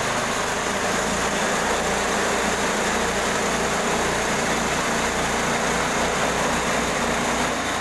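Portable bandsaw mill running steadily, its engine driving the band blade with a constant drone.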